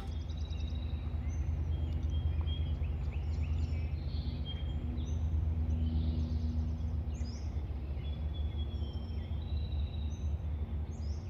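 Birds chirping and whistling on and off, over a low steady hum.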